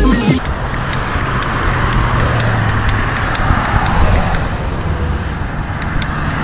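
Road traffic on the road alongside: a steady rush of tyre and engine noise that swells over the first few seconds as vehicles pass, then eases, with scattered faint clicks.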